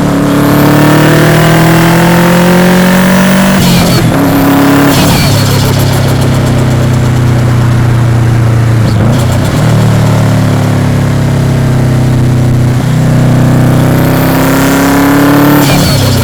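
Subaru Impreza WRX's turbocharged EJ207 flat-four pulling hard, its pitch climbing steadily, then falling sharply at each gear change: about 4 s in, again about a second later, and near the end after a long climb. At each lift off the throttle comes a short burst of turbo flutter.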